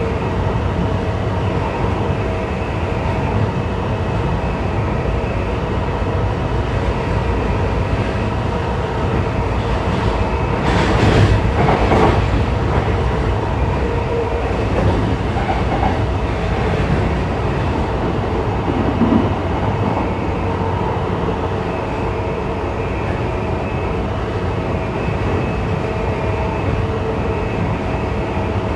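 JR East E235-1000 series electric train running at speed, heard from inside the car: steady wheel-and-rail rumble with a constant motor hum and light clickety-clack. About 11 seconds in there is a brief louder rushing surge.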